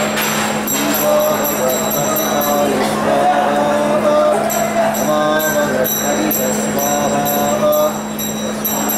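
A temple hand bell is rung continuously during the ritual bathing (abhishekam) of a deity's idol, over group chanting of hymns on a few stepped notes and a steady low drone.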